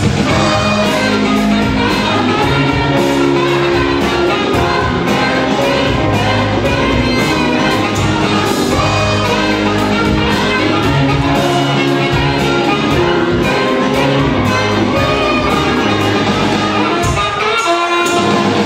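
Live band playing: a saxophone carries the lead melody over electric bass, drum kit and electric guitar, with sustained bass notes and a steady beat.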